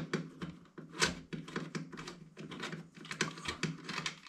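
Rapid, irregular clicking and ticking of a hand rivet-nut tool being turned to unscrew it from a freshly set nut insert in a bicycle frame.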